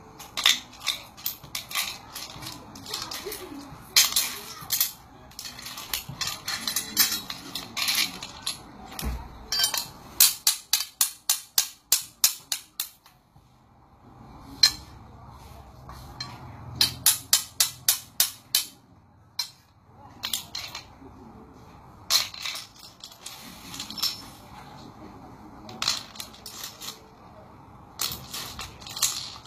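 Broken jade pieces clicking and clattering against one another as they are handled and set back down on a pile, with a couple of quick runs of clicks.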